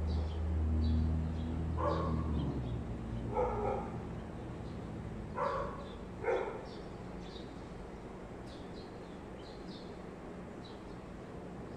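A dog barking: four short barks, spread over the first seven seconds or so.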